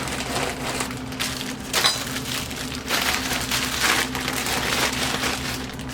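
Plastic zip baggie crinkling and rustling as sewing machine belts and a paper tag are stuffed into it, with a steady low hum underneath.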